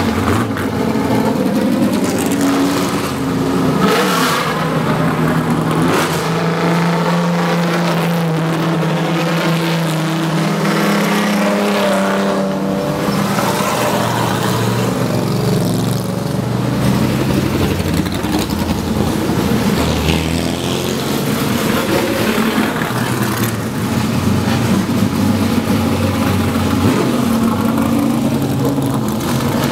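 A procession of vintage race cars driving past one after another, engines running loud and continuous, their pitch rising and falling as they rev.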